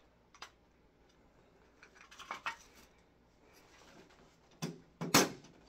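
Hard plastic clicks and clacks as a cassette tape is worked into the damaged cassette deck of a Westinghouse CD/cassette player. A few clicks come about two seconds in, then a knock and one loud sharp clack near the end.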